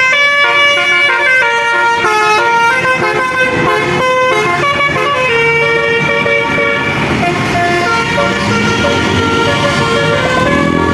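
Bus basuri horn, the multi-tone 'telolet' horn, playing a tune in stepped notes. It is loud, and the notes blur later on. A rising sound sets in near the end.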